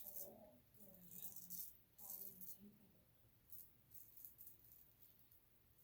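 Faint, short scraping strokes of a Feather SS kamisori straight razor cutting through lathered stubble, coming in quick clusters throughout. A faint low voice is heard twice, at the start and about two seconds in.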